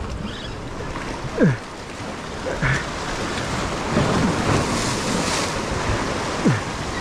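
Surf washing against a rock jetty, with wind buffeting the microphone; the wash swells partway through. A couple of short, sharp sounds stand out near the start and near the end.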